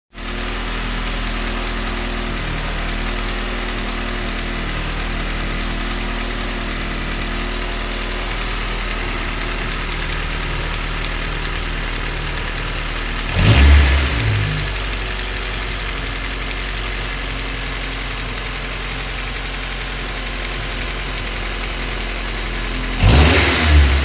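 Honda Civic D16A9 1.6-litre four-cylinder engine idling with a ticking noise, its throttle blipped briefly twice, about halfway through and near the end.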